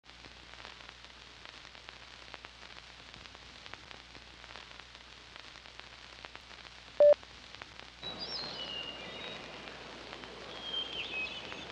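Crackle and hiss of a worn old film soundtrack, with scattered clicks. About seven seconds in comes a short loud beep, and from about eight seconds birds chirp over a louder background hiss.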